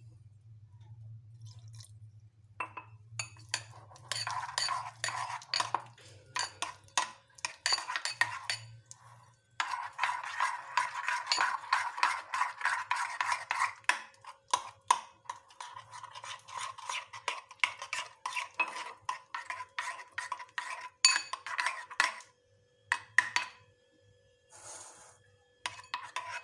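Metal spoon stirring flour-and-water batter in a ceramic bowl, scraping and clinking against the sides in quick, dense strokes, with a few short pauses.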